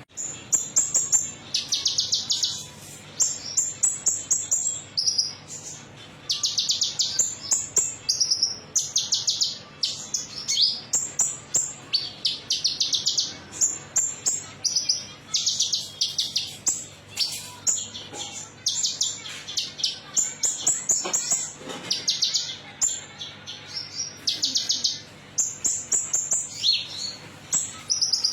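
Konin songbird singing a metallic, chattering song: short bursts of very fast, high trilled notes, repeated over and over with brief pauses.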